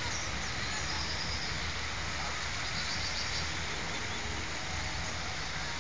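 Small radio-controlled model boats' motors buzzing faintly over a steady wash of outdoor noise.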